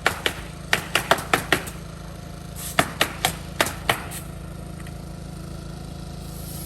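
Hammer blows on a construction site, a quick run of sharp knocks at about four a second that stops about a second and a half in, then five slower blows. After the blows a steady low hum is left.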